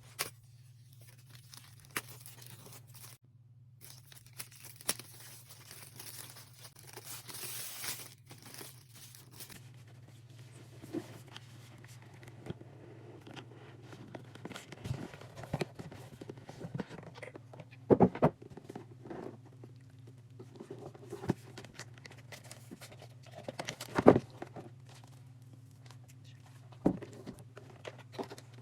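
A laptop's packaging being opened by hand: tearing and crinkling of wrapping for several seconds, then scattered taps and knocks as the box and its contents are handled, two of them sharper in the second half. A steady low hum runs underneath.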